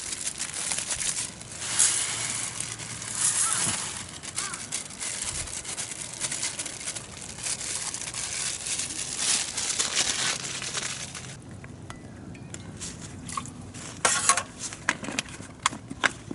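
Continuous crinkling and rustling, like plastic packaging or a bag being handled, followed after a quieter pause by a few sharp clicks near the end.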